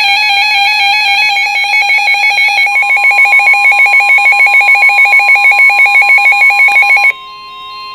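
Emergency Alert System broadcast alert tones: a loud electronic alarm warbling rapidly between two pitches. About three seconds in, a steady tone joins it; near the end the warble cuts off suddenly and the steady tone carries on more quietly.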